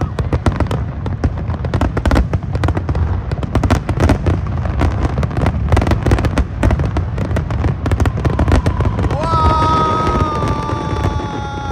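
Fireworks display going off in a dense run of rapid bangs and crackles over a constant low rumble. Near the end a long held tone, slowly falling in pitch, sounds over the bangs.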